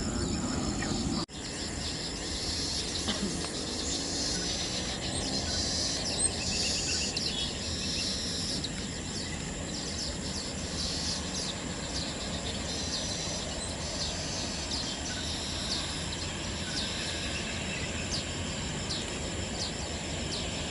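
Outdoor ambience: a steady hiss with many short, high chirps and trills scattered through it. It breaks off briefly about a second in.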